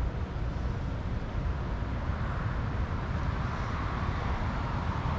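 Steady outdoor background noise: a low, uneven rumble with a hiss that grows louder about two seconds in.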